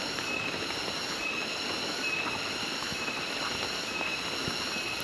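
Loud, steady chorus of jungle insects, shrill and droning like a chainsaw or white noise. A short high note repeats about once a second over it.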